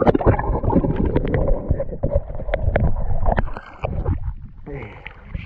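Lake water sloshing and gurgling against a camera dipped at the surface, with many muffled knocks and splashes. It gets quieter about three and a half seconds in, as the camera comes up out of the water.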